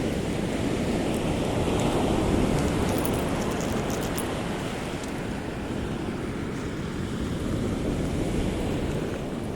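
Ocean surf breaking and washing up a beach, a steady wash that swells about two seconds in and then eases. Wind is rumbling on the microphone.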